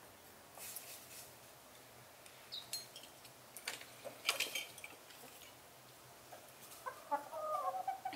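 A few light clinks and taps of tea glasses in metal holders being lifted from a table, loudest about four seconds in, then chickens clucking near the end.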